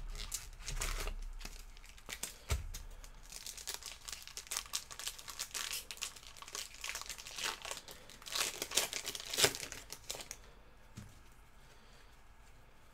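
Crinkling and tearing of a foil trading-card pack wrapper being opened by hand: a dense run of crackles, loudest just before it stops about ten seconds in.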